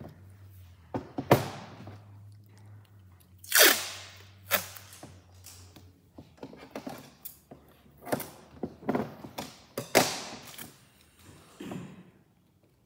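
Hands rubbing and pressing framer's tape down along the back edges of a wooden picture frame: a string of short sharp swishes and light knocks as the frame is handled on the table.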